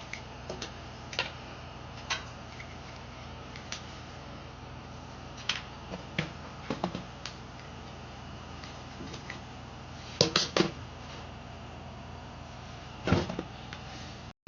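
Irregular sharp clicks and light knocks of the desk fan being handled, over a steady low hum; the loudest come as a quick cluster about ten seconds in and again near the end.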